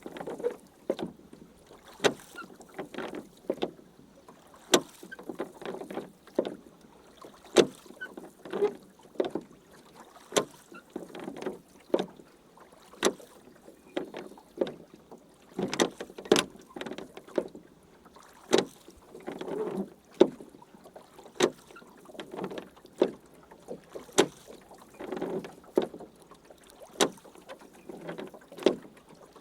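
Rowing boat under way: oar strokes swishing and splashing through the water, with sharp wooden knocks of the oars in their locks, irregular, about one or two a second.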